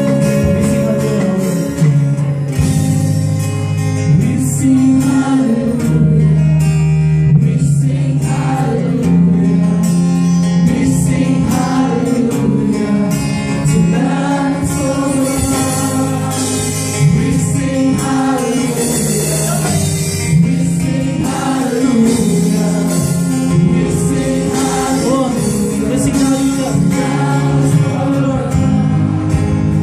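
A live church worship band playing a praise song: several singers on microphones singing together over amplified guitars and drums.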